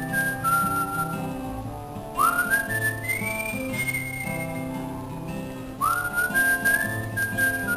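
A man whistling a film-theme melody in long held notes, swooping up into a high note about two seconds in and again about six seconds in, over a strummed acoustic guitar accompaniment.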